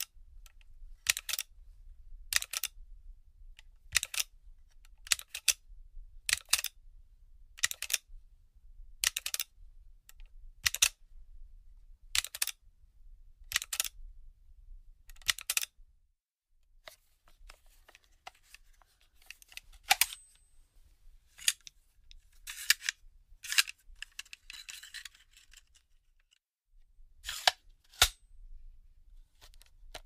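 Firearm magazine being handled: a dozen sharp mechanical clicks about every 1.3 seconds through the first half, then irregular clicks, a short scraping slide and two metallic clacks that each leave a brief high ring.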